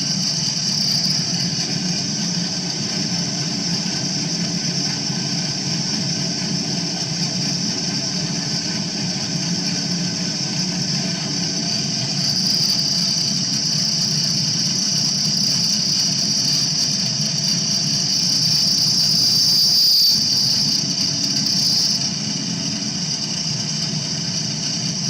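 Milling machine cutting metal: a steady high-pitched squeal from the cutter over the hum of the machine. The squeal grows louder about halfway through and drops back a few seconds before the end.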